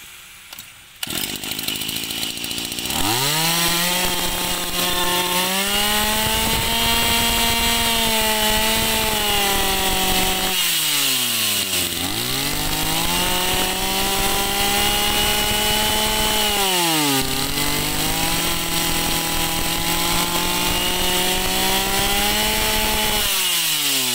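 Old Echo two-stroke brush cutter engine, pull-started about a second in and catching around three seconds. It is revved up and held at high speed three times, dropping back in between, and its pitch falls away near the end.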